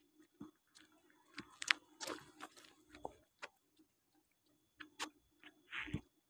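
Scattered knocks and scuffs, then a bowler's running footsteps on artificial turf. Near the end comes a heavier thud as he lands in his delivery stride. A faint steady electrical hum runs underneath.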